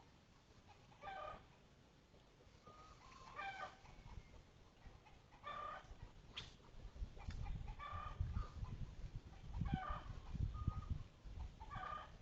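A bird, likely a chicken, calling in short pitched calls every one to two seconds. A low rumbling noise comes in about a third of the way through and grows louder than the calls.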